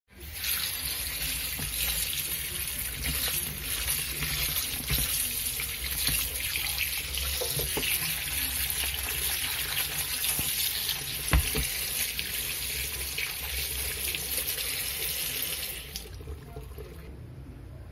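Kitchen tap running, its stream splashing through a plastic colander of jackfruit pieces into a stainless steel sink as the fruit is rinsed. One sharp knock about eleven seconds in, and the water stops near the end.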